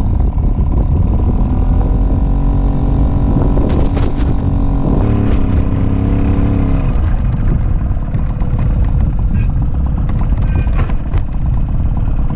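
Puch Maxi moped's 50cc two-stroke single-cylinder engine running under load on a rough gravel climb, its pitch rising at the start, holding, then dipping about five seconds in. A couple of sharp knocks from the stony track about four and five seconds in.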